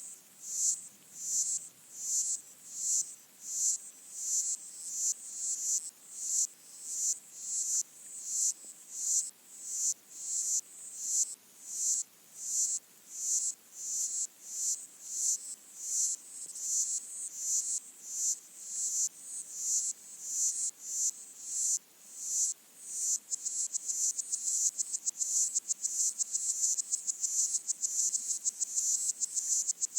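Underwater chorus of pygmy water boatmen (Micronecta) stridulating, picked up by hydrophone: high, buzzy chirps pulsing a little more than once a second, becoming a faster, denser rattle about three quarters of the way through.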